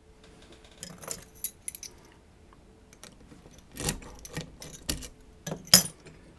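Small metal clicks and clinks from handling a Lockman Megacross lock and its picking tools, with a scattered run of sharp clicks and the loudest one near the end.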